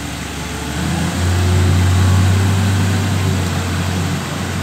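Wheel loader's diesel engine running, revving up about a second in and easing off again near the end.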